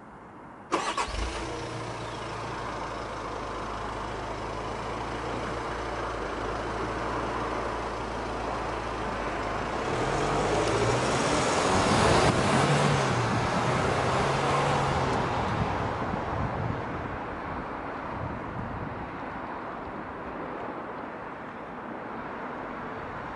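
Volkswagen Amarok pickup's diesel engine starting abruptly about a second in and idling steadily. It then revs as the truck pulls away and fades as it drives off. This is the stock engine sound, with the Kufatec active sound booster switched off.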